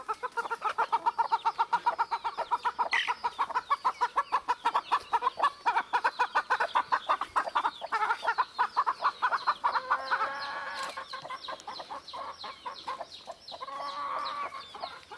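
Chickens clucking: a fast, even run of short clucks, several a second, for about ten seconds, then softer, more varied calls near the end.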